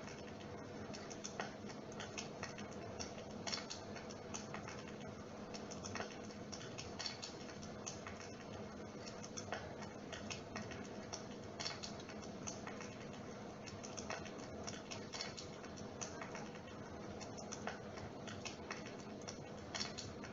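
Dimplex mist-effect flame unit running: a faint steady hum with irregular light clicks and ticks, several a second.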